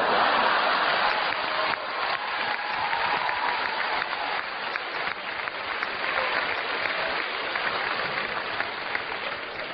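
Audience applause: many hands clapping, breaking out all at once and then going on steadily.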